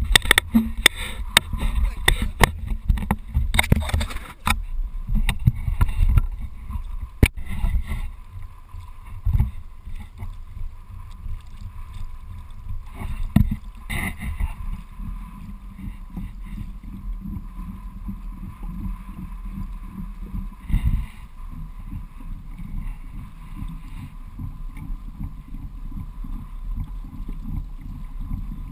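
Water sloshing and lapping against a moving kayak's hull under a low, uneven rumble. A run of sharp knocks and clicks comes in the first eight seconds or so, after which the sloshing goes on steadily.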